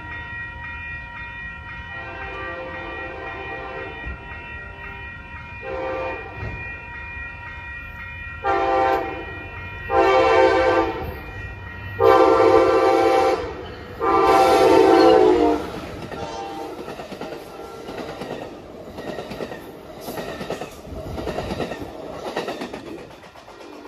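Passenger train locomotive horn sounding a series of blasts: a short one, then four loud chord blasts, the later ones longer. Then the train rolls past with wheels clacking over the rail joints.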